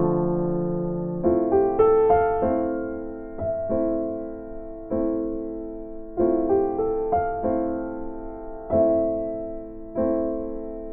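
Background music: a slow piano or electric-piano piece, chords struck every second or so and left to ring out.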